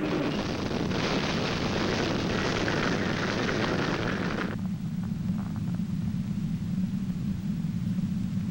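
Strong tornado wind rushing, a loud even noise that drops away about four and a half seconds in, leaving a steady low rumble.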